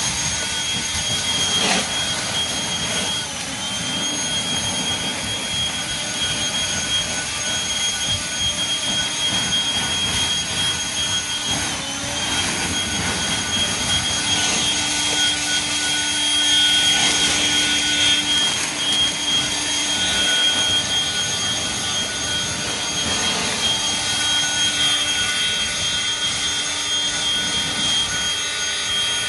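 Hart 40-volt brushless turbo fan leaf blower running at speed: a steady rush of air with a high whine. The whine dips briefly and comes back about three seconds in, and again near twelve seconds.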